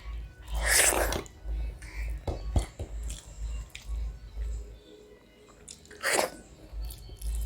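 Close-up eating sounds: chewing with a few sharp clicks, and two louder noisy mouthfuls, one about half a second in and one about six seconds in. Background music with a steady low beat plays underneath.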